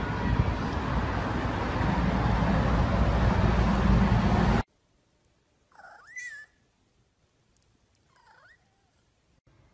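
A steady rushing noise cuts off abruptly after about four and a half seconds. Then a domestic cat meows twice: a longer meow that rises and falls, and about two seconds later a short, fainter one.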